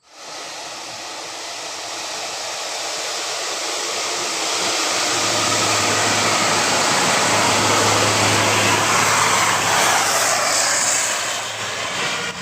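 Bus engine and road noise as a bus drives close by: a steady rushing roar that starts suddenly, builds over about five seconds with a low engine hum underneath, and eases near the end.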